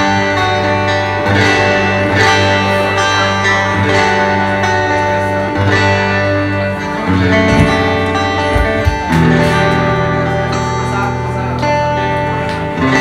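A live band playing an instrumental passage, led by a clean electric guitar over bass and drums, with a couple of sharp drum hits in the middle.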